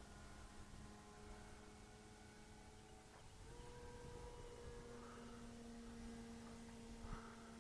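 Faint, steady whine of an RC model Cessna 170's electric motor and propeller in flight; its pitch steps up about halfway through as the throttle changes.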